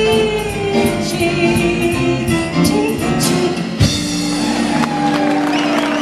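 Live jazz trio of piano, upright bass and drums with a female singer ending a song: she holds long sung notes over the band, a sharp hit comes about four seconds in, and a closing chord rings on as the audience begins to cheer.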